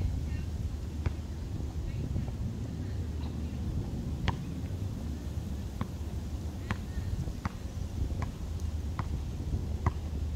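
A basketball bouncing on a concrete court as a player dribbles: single sharp bounces, one about a second in, then regular bounces roughly every second through the second half, over a steady low background rumble.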